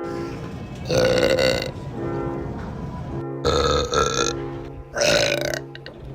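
A person belching loudly three times, each belch under a second long and about two seconds apart, over background music.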